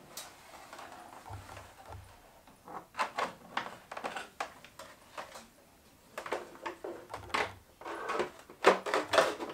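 Plastic body shell of a 1:10 scale RC crawler being handled and lowered onto its chassis: a string of light plastic knocks, clicks and rustles, busiest in the last few seconds as it is seated.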